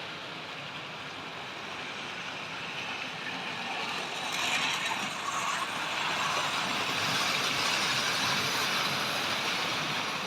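Model railway train running along the layout's track, a steady rolling hiss that grows louder about halfway through.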